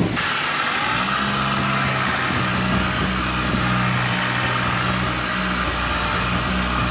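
Small handheld sander running against a car's body panel, sanding body filler (putty) over a dent. A steady whirring hiss, with a low hum that comes in about a second in.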